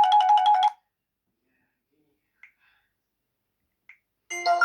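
LG Optimus L5 E455 ringtones: a quick, repeating electronic phrase of short notes stops under a second in. After a pause with two faint clicks, a different ringtone of bright, ringing chime-like notes starts near the end.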